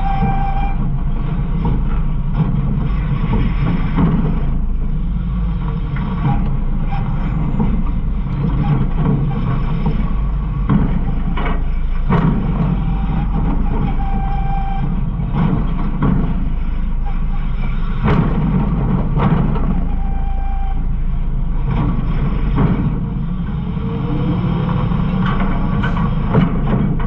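Garbage truck running, heard from inside its rear hopper: a steady engine rumble with scattered knocks and rattles.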